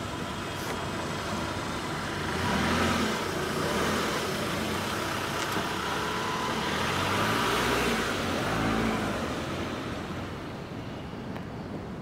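A car pulls away along a street amid traffic noise, its engine and tyres swelling a few times before fading near the end.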